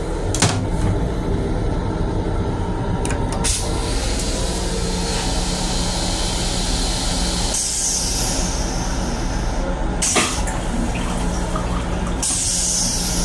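Flush cycle of the stainless steel toilet in a Long Island Rail Road M7 train car: clicks, then several seconds of water rushing and hissing into the bowl, which comes and goes. The train car's steady hum runs beneath.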